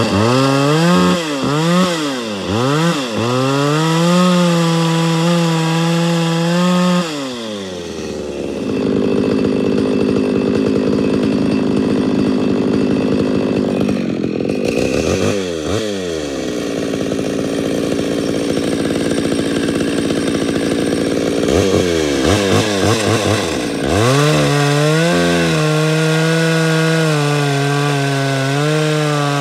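Homelite 240 two-stroke chainsaw blipped to high revs several times and held at full throttle, then dropped to a rough idle, with another pair of quick blips partway through. Near the end it runs up to full throttle again and cuts into a log.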